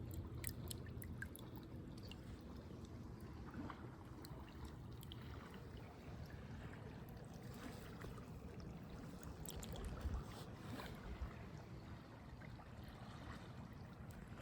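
Faint river water running and trickling, with scattered small clicks and knocks.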